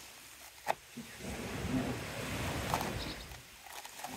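Plastic wrapping on a new spool of nylon trimmer line rustling and crinkling as gloved hands handle it and pull the line's end free, with a sharp click a little under a second in and a lighter one near the end of the rustling.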